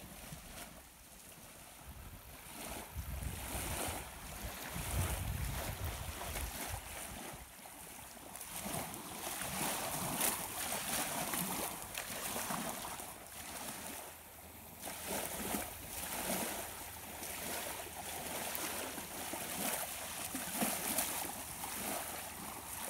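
Small waves lapping and washing onto a sandy river beach, the sound swelling and easing, with wind buffeting the microphone in gusts, strongest a few seconds in.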